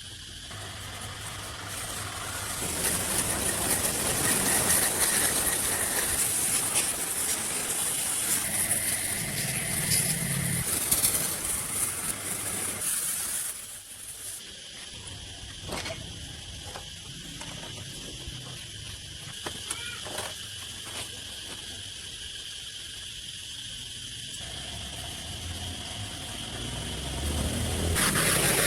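Arc welding on steel: a steady crackling hiss that starts about two seconds in, cuts off about halfway through, and starts again near the end.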